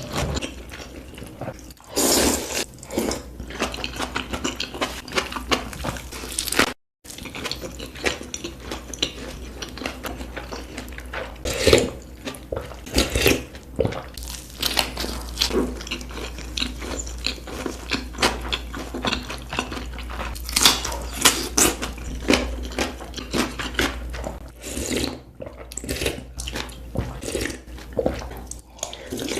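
Close-miked eating of hot pot food: a dense run of wet chewing, smacking and slurping clicks, with no words. The sound cuts out briefly about seven seconds in.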